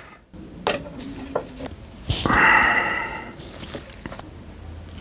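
Rubber hose being worked onto a metal tube by hand: a few light clicks and taps of the fittings, and about two seconds in a harsher rubbing, squeaky sound lasting about a second as the hose slides on.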